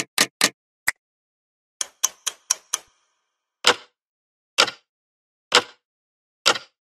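Sparse percussion of a music track: sharp snap-like clicks with silence between them, first in two quick runs of several, then single hits about once a second.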